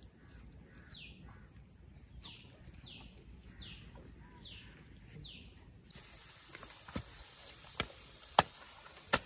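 Forest insects droning steadily, with a falling chirp repeated about every 0.7 s. About six seconds in, the sound changes to a higher insect drone with several sharp clicks and taps as a small knife trims banana leaf around a bamboo tube.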